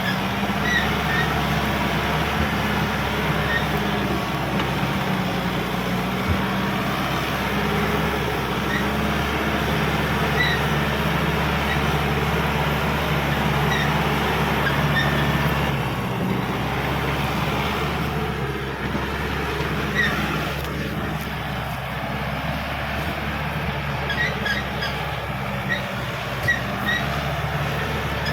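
Caterpillar D5K XL bulldozer's diesel engine running steadily under working load, with track and blade noise, easing slightly now and then. Short high squeaks and a few knocks sound over it.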